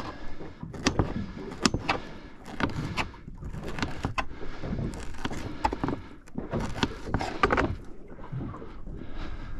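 A run of sharp knocks and clicks with rustling between them: gear and bait being handled aboard a small fishing boat.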